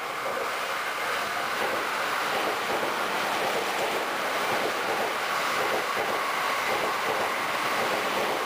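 Electric commuter train running along a station platform: a steady rushing noise of wheels and carriages that builds a little in the first second and then holds.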